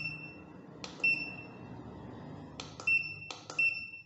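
Keypad buttons pressed on a Hikvision fingerprint time-attendance terminal. Each press gives a click and a short high electronic beep: three beeps, about a second in, near three seconds and again half a second later.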